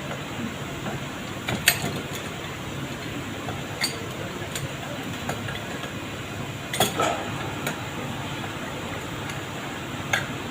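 Metal hand tools clinking and tapping against alternator parts: a few sharp clinks a couple of seconds apart, the loudest about two-thirds of the way in, over a steady low hum.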